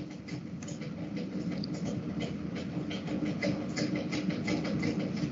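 A steady low background hum with faint hiss and scattered faint clicks.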